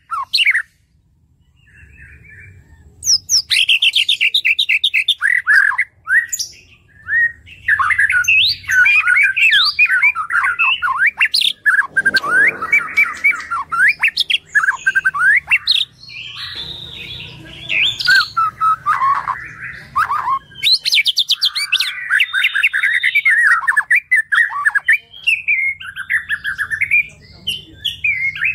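A male white-rumped shama (murai batu) singing a loud, rapid, varied stream of notes that sweep up and down, starting about three seconds in and running on with only short breaks.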